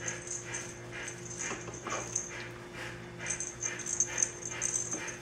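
A litter of four-week-old puppies whimpering and squeaking in short cries, a few each second, over a steady low hum.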